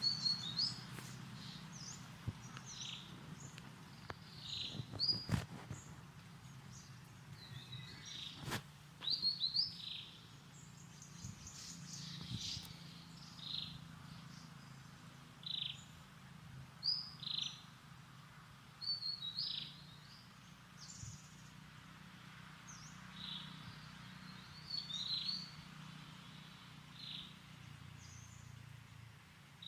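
Short, high-pitched animal chirps or squeaks, repeated every second or two, over a low steady hum. Two sharp clicks come about five and eight seconds in.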